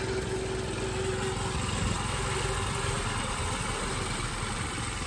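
Go-kart's small gas engine running steadily as the kart drives along, with a thin steady whine that fades out about three seconds in.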